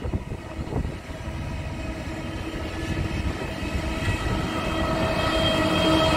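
Diesel locomotives hauling the Indian Pacific passenger train approaching, their engine drone with a steady pitch growing steadily louder over a low rumble as the train nears.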